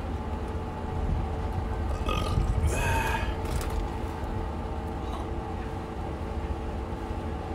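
A man burps about two seconds in, a single throaty belch over steady low street background noise.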